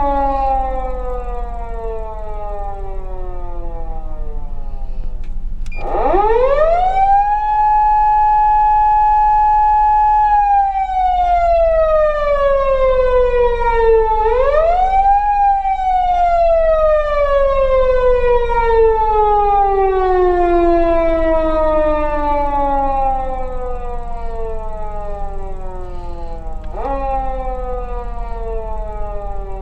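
PATLITE SAP-520 electronic siren amplifier sounding a police wail. The pitch falls slowly, sweeps up fast about six seconds in and holds a steady high note for about four seconds, then slides slowly down. It rises again about halfway through, slides down for some ten seconds, and makes two quick rises near the end.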